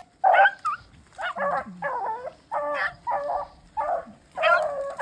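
A pack of rabbit hounds baying in short, repeated cries, about two a second, as they run a rabbit.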